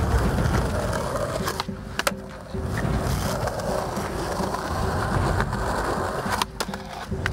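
Skateboard wheels rolling on smooth concrete, a steady low rumble, with a few sharp board clacks about a second and a half in and again near the end.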